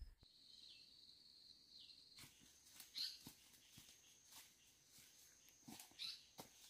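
Faint outdoor background: a thin, steady high-pitched buzz of insects, with scattered soft taps and a couple of brief high chirps.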